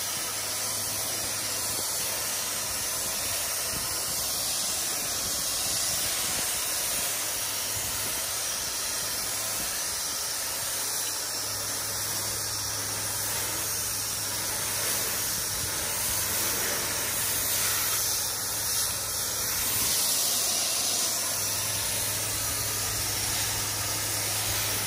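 Pressure washer wand spraying a steady hissing stream of water against a house wall while rinsing it, with a steady low hum underneath.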